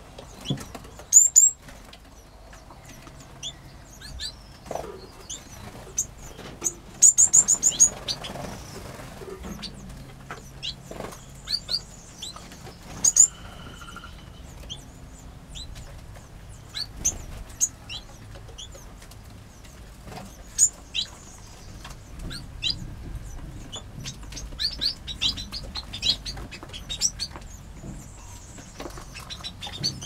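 Small aviary birds, finches and canaries, chirping and calling with short high notes throughout, along with wing flapping. The loudest moment is a quick run of notes about seven seconds in.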